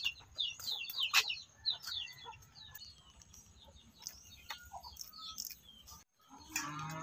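Small birds chirping: quick runs of short, falling chirps, busiest in the first two seconds, with a few sharp clicks among them.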